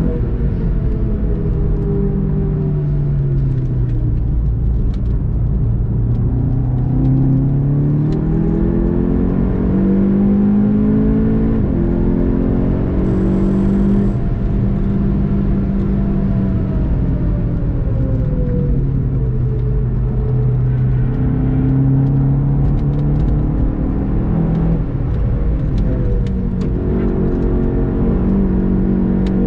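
Volkswagen Golf 7 GTI TCR's turbocharged 2.0-litre four-cylinder engine heard from inside the cabin, its pitch falling and rising several times with throttle and gear changes while driving. A steady low road rumble runs underneath.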